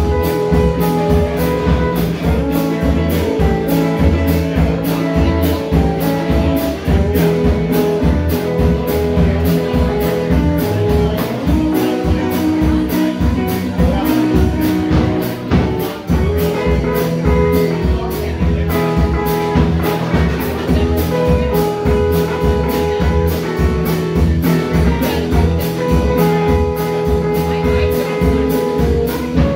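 Live band playing: electric guitars and bass over a drum kit keeping a steady beat.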